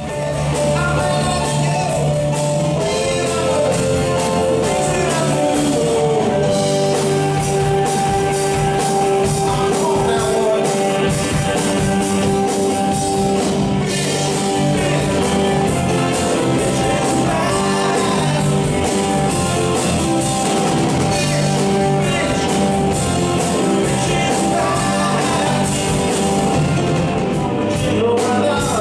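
Live rock band playing: grand piano, electric guitars, bass and drum kit, with a voice singing over them.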